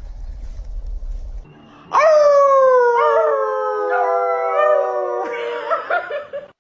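A dog howling: one long howl starting about two seconds in, sliding slowly down in pitch with a slight waver, and breaking off just before the end. A low rumble comes before it.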